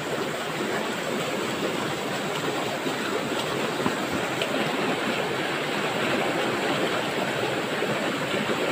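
Fast-flowing river water rushing, a steady noise.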